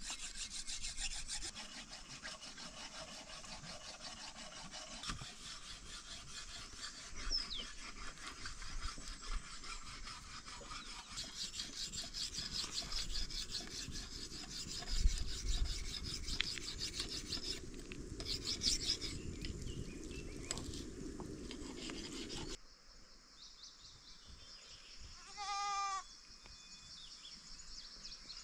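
Quick, repeated hand scraping strokes, many to the second, keep going for about twenty seconds and then cut off abruptly. In the quieter stretch after that, a goat bleats once.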